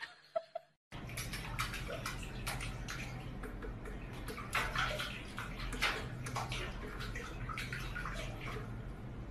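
Water splashing and sloshing in a steel kitchen sink as a cat paws and wades in it, starting about a second in with many small irregular splashes.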